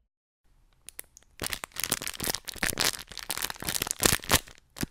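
A quick, irregular run of crinkling crackles, like plastic or paper being crumpled, used as a creature's voice in place of words. It starts faintly about half a second in and grows louder a second later.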